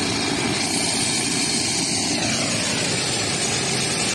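A steady engine-like drone of machinery running without a break, with an even hiss over it.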